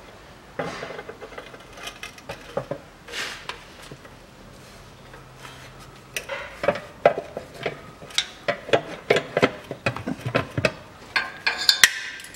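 Metal clinks, taps and knocks as an automatic-transmission oil pan and its loosely fitted bolts are handled and pushed up into place against the gearbox. The clicks are sparse at first and become a quick, busy run in the second half.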